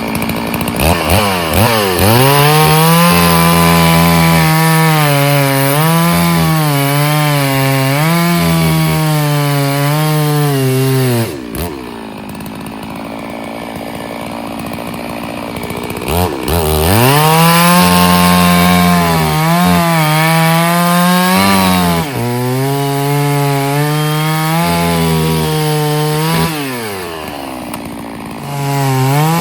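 Stihl two-stroke chainsaw bucking firewood. It revs up and cuts under load, its pitch dipping and recovering as it works through the wood. It drops to idle for a few seconds around the middle, then revs up and cuts again, idles briefly near the end and revs up once more.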